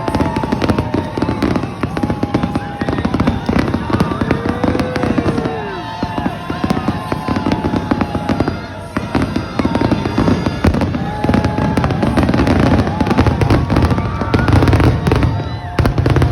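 Fireworks display: shells bursting and crackling in rapid, continuous succession, with a heavy low rumble of bangs.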